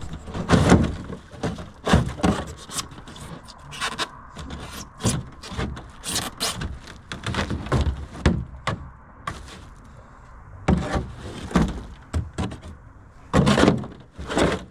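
Irregular knocks, thuds and scraping as old carpet and rotting plywood are pried and torn off the floor of a john boat.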